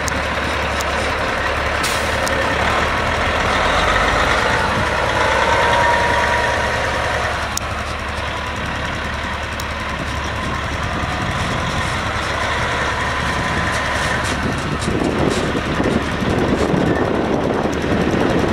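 Caterpillar C15 six-cylinder diesel engine of a 2007 Freightliner grain truck running as the truck drives slowly across a grass field. It gets louder near the end as the truck comes close.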